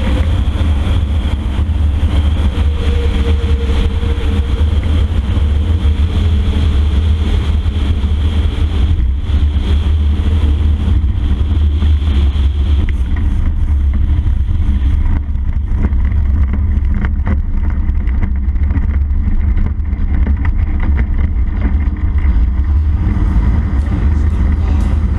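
CFM Shadow microlight's engine and propeller running steadily with heavy wind rumble on the wing-mounted camera. About halfway through the high rush of the airflow fades as the aircraft slows on the grass strip, leaving the engine running on, with occasional short knocks as it rolls over the grass.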